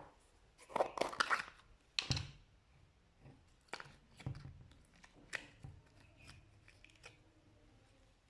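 Slime being handled: irregular crackling and tearing bursts with sharp little clicks and pops, loudest about a second in and again at two seconds, then sparser and softer.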